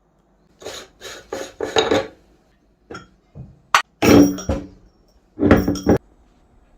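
Meat grinder at work: a quick run of four short scraping strokes, then three sharp metallic clicks, then two louder, longer grinding strokes.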